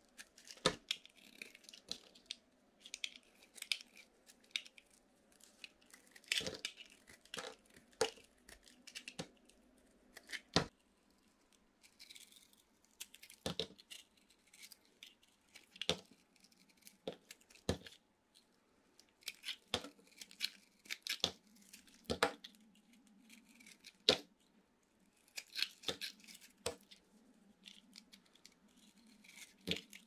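Snap-off utility knife cutting curls and chunks from a bar of dry soap: a string of sharp, irregular crunches and cracks as the pieces break away, with scraping between them.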